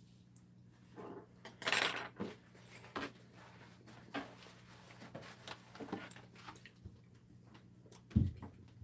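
Tableside eating sounds: chopsticks clicking and scraping against plates and bowls while seafood is picked apart, with scattered light clicks, a short rustle just before 2 s and a dull thump near the end, over a faint steady low hum.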